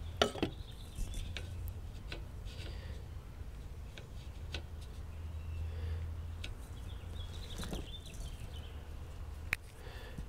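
Aluminium trim pieces being picked up and set down on a plywood work table: scattered light clicks and taps, a sharp clack just after the start and another near the end, over a steady low outdoor rumble.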